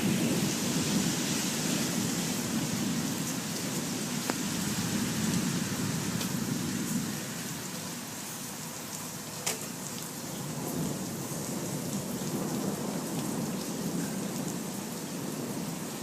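Steady heavy rain during a thunderstorm, with a low rumble of thunder that fades about seven seconds in and leaves mostly the rain hiss. Two brief sharp ticks stand out, about four and nine and a half seconds in.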